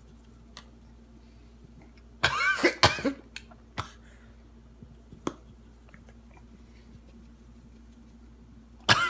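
A man coughing on a mouthful of dry chili powder. A long, throaty cough comes about two seconds in, then a few short, sharp coughs over the next few seconds, and a fresh bout of coughing starts at the very end.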